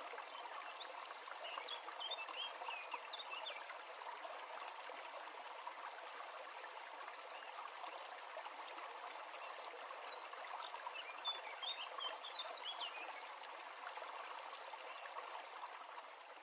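Outdoor ambience: a steady rushing hiss with small birds chirping in two short bouts, near the start and again a little past the middle.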